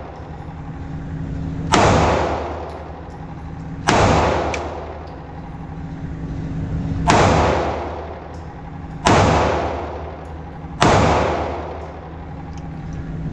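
Ruger EC9s 9mm pistol fired five times at an unhurried, uneven pace, roughly two seconds apart. Each shot is a sharp crack followed by a short echo that dies away, over a steady low hum.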